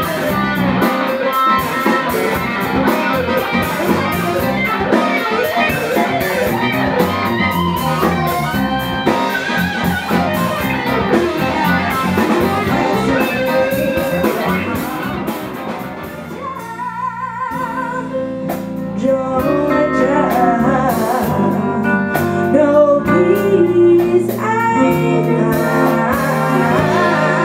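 Live band music: a showband playing soul and funk with electric bass, guitar and drums, with singing. A little over halfway through the level dips briefly and a different song takes over.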